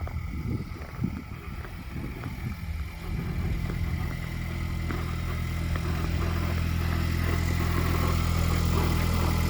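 Ford Bronco engine idling shortly after a cold start, a steady hum that sets in about three seconds in and grows louder, after a few irregular low thumps. The owner says the truck makes a grinding noise that can be heard from 20 feet or more away.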